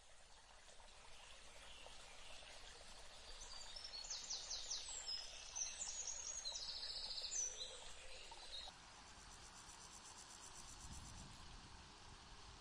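Faint outdoor nature ambience: birds chirping in quick high calls and short trills, loudest in the middle, over a soft bed of insect sound and hiss that swells at first and drops a little near the end.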